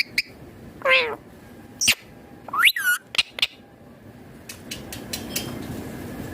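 Indian ringneck parakeet calling: one drawn-out call sliding down in pitch about a second in, then a short sharp call and a quick rising-and-falling call near three seconds, followed by a few clicks.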